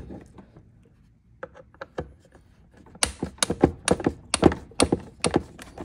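A run of sharp clicks, about two or three a second, starting about three seconds in after a few faint ticks: a T25 Torx screwdriver working screws out of a plastic motorcycle lower-fairing piece.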